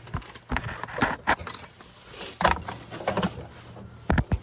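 Metal parts clanking and rattling as the snowblower attachment is handled: a string of sharp knocks and clinks, irregularly spaced, with a close pair near the end.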